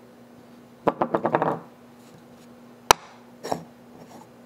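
Pieces of a white oak salt cellar knocked and set down on a wooden work table: a quick clatter of wooden knocks about a second in, then one sharp knock near three seconds and a softer one just after.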